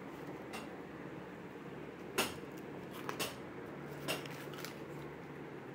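Tricycle parts clicking and knocking lightly as they are handled, about half a dozen short sharp knocks with the loudest about two seconds in, over a steady low background hum.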